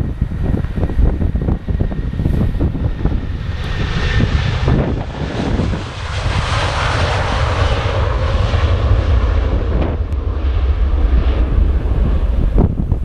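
Airliner's engines passing by: a broad rushing noise that builds over a few seconds, peaks mid-way and fades away, with wind buffeting the microphone underneath.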